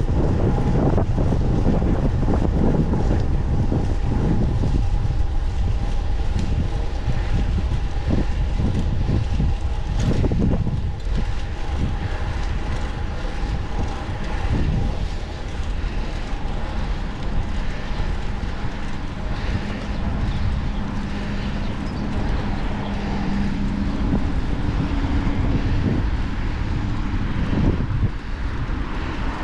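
Wind rushing over the microphone on a moving fixed-gear bicycle, with motor traffic running close by. A steady engine hum stands out through the second half.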